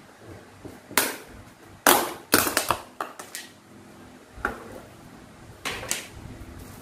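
Thin clear plastic tubs and lids being handled: a string of sharp plastic clicks and crackles, several close together about two seconds in, as a lid comes off and the tubs are moved and set down.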